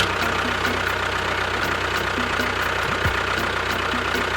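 An engine idling steadily with an even knock, about three beats a second.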